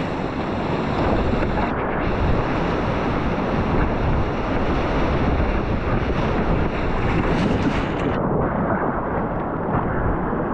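Rushing whitewater of a flood-swollen river rapid, heard from a packraft running it: a loud, steady churning rush. About eight seconds in the sound abruptly turns duller.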